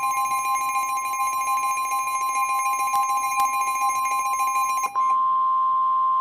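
Emergency Alert System attention signal: a steady two-tone electronic alarm. About five seconds in it changes to a single steady tone.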